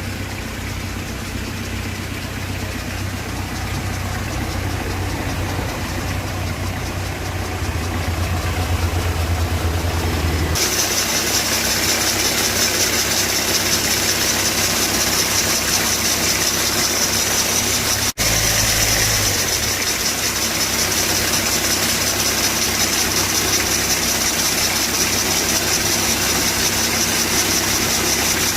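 Car engine idling with bearing noise from the alternator/accessory belt tensioner pulley, the sign of a worn tensioner bearing. About ten seconds in the sound changes abruptly to a louder, high-pitched whir, with a brief break about eighteen seconds in.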